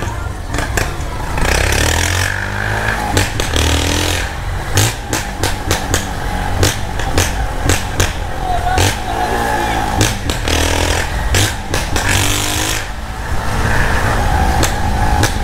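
Motorcycle with a gutted, baffle-removed exhaust (a 'desmiolado') being ridden, its engine pitch rising and falling several times as it speeds up and slows, with many short sharp cracks throughout.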